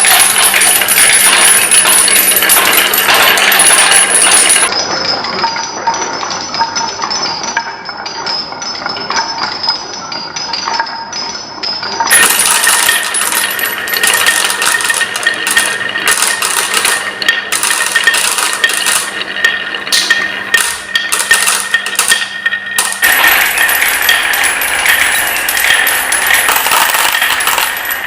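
Marbles and wooden balls rolling and clattering down a wooden marble run: a dense, continuous patter of clicks and rattles. The sound changes abruptly about five, twelve and twenty-three seconds in, as one run gives way to the next.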